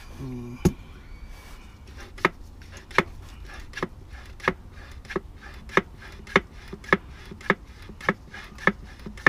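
Hand-operated bottle-top oil pump being stroked steadily, a sharp click on each stroke, about one every 0.6 seconds from about two seconds in, as 75W-80 GL-4 gear oil is pumped into the gearbox fill hole.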